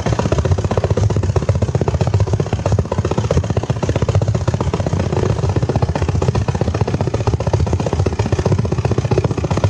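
Shortwave radio signal picked up on a home-built crystal radio set and played through loudspeakers: a loud, steady, rapid rough pulsing buzz, which the uploader takes to be a HAARP transmission.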